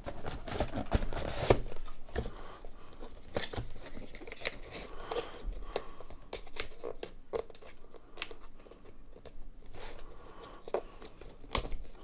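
Cardboard retail box and its insert being handled and pushed back together: irregular rustling, scraping and small sharp clicks of card and plastic tape tab.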